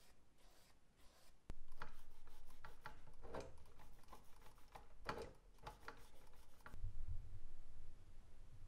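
Paper towel wiping over a toy car's wheel and metal axle in a series of short rubbing strokes, the loudest about three and a half and five seconds in, followed by a low hum near the end.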